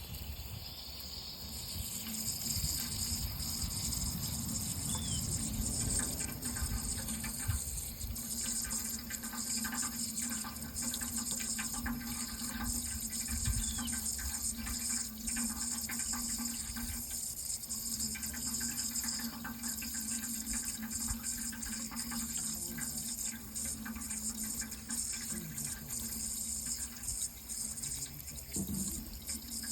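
Water running steadily, an even rushing flow with small irregular splashes and a low steady hum underneath.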